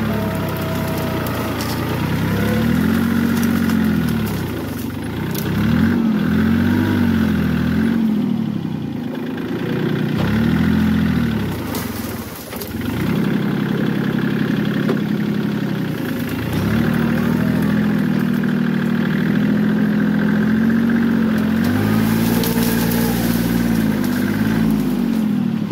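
Vehicle engine revving up and down in repeated swells, then holding steadier revs through the second half, as the vehicle strains to pull an apple tree over.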